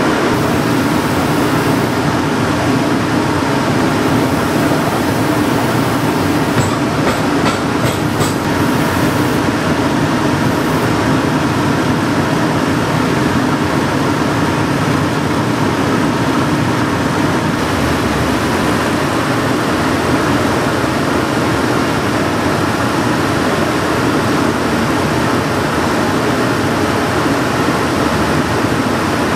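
Cobbler's shoe finishing machine running steadily, its spinning wheels grinding against a shoe sole pressed to them to trim and finish the edge. A few quick clicks come about seven to eight seconds in.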